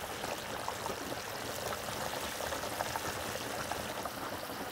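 Water running steadily.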